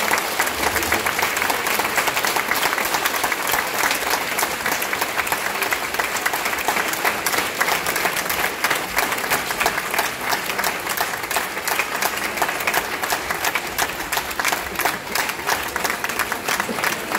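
Audience applauding, the clapping thinning out a little near the end.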